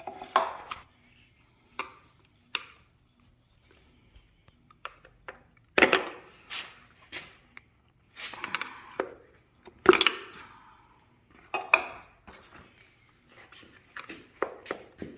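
Flat-blade screwdriver prying and scraping at plastic clips on a Ford 5.0 Coyote engine's valve cover. It makes irregular clicks, knocks and scrapes, with louder bursts about six, ten and twelve seconds in.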